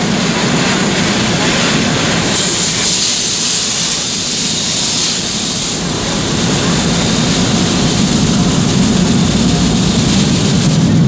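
Automatic tunnel car wash heard from inside the car: water jets spraying against the windshield and body over the steady rumble of the wash machinery. A harsher hiss of spray comes in about two seconds in and fades around six seconds, then a deeper rumble builds.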